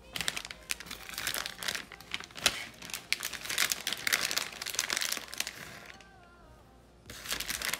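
Crinkling, rustling handling noise from hands-on food preparation, in two stretches with a pause of about a second near the end.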